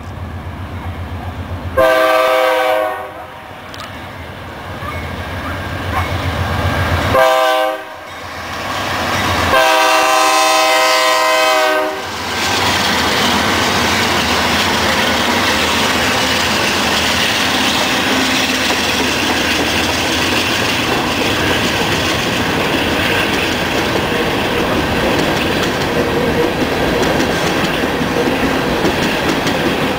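BNSF GE Dash-9 diesel locomotives rumble closer and sound their horn for a grade crossing: a long blast about 2 seconds in, a short one about 7 seconds in, then a longer held blast. From about 12 seconds in, the loaded grain hopper cars roll past with a loud, steady noise of steel wheels on the rails.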